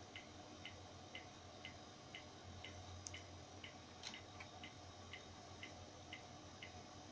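Faint regular ticking, about two ticks a second, that stops shortly before the end, over quiet room tone.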